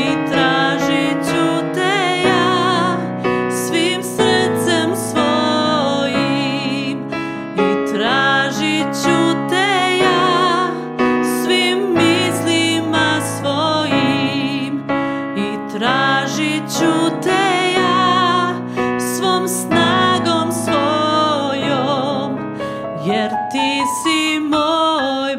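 A woman singing a song with vibrato, accompanied by chords on a digital piano.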